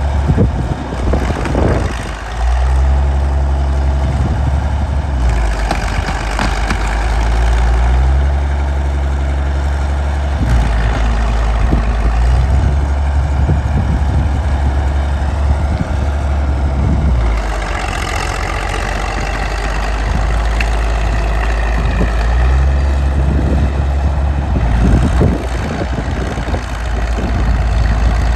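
1952 Caterpillar D6-9U bulldozer's diesel engine running loudly at work, its note shifting up and down every few seconds as the load changes, with scattered clanks and hiss over it.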